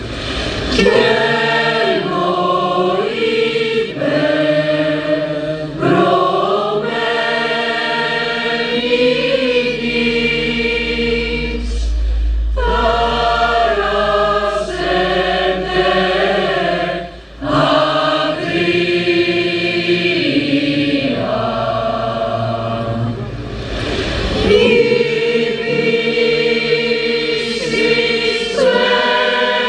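Choir singing a slow hymn in several voices, phrase after phrase, with a short break a little past the middle. A deep low rumble swells under the singing around the middle.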